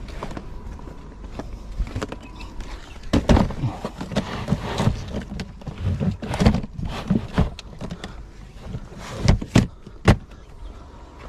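White Naturehike plastic folding storage crates being handled and pushed into a car boot: irregular knocks and clunks of hard plastic against plastic and the boot floor, the sharpest about three seconds in and near the end.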